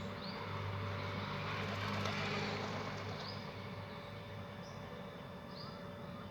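A few short, high bird chirps scattered over a steady low engine drone that fades slightly after the first few seconds.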